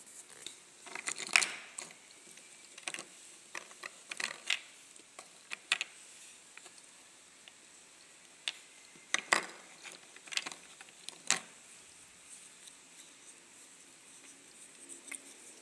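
Dry lumps of kaolin clay handled by hand, clicking and knocking against one another and the tabletop in irregular sharp taps. The loudest clatters come about a second in and again around nine seconds in.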